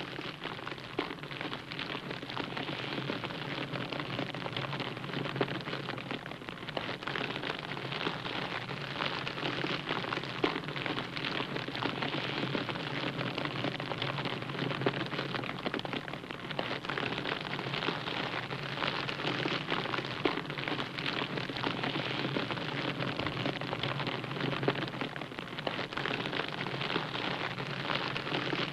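TIG welding arc on stainless steel: a steady hiss thick with fine crackle, with a low hum underneath.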